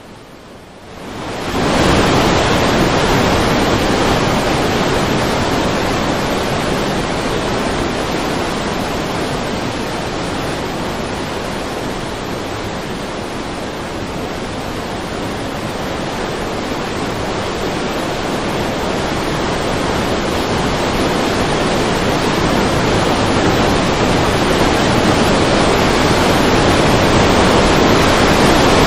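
Fast-flowing muddy floodwater rushing, a loud, steady noise of water that rises sharply about a second and a half in.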